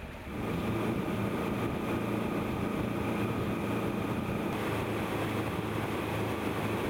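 Sealine S34 motor cruiser under way at speed: a steady engine hum under the rush of water and wake along the hull, coming in abruptly just after the start.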